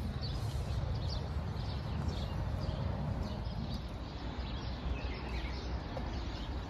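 Small birds chirping in short, scattered calls over a steady low rumble of outdoor noise.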